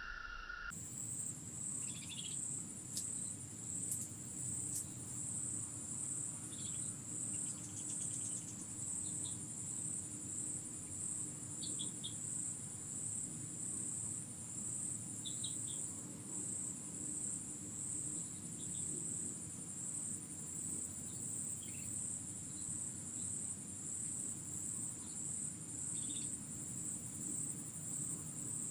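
Insect chorus trilling high and steadily with a regular pulse, over a low steady background rumble, with a few faint short chirps here and there.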